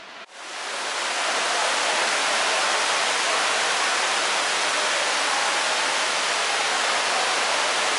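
Water cascading down the tiers of a large indoor fountain and splashing into its basin, a steady rush that swells in over the first second.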